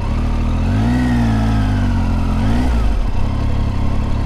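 Triumph Tiger 800's three-cylinder motorcycle engine at low speed. The revs rise about a second in, ease, rise briefly again, then drop back near the three-second mark to a steady low run.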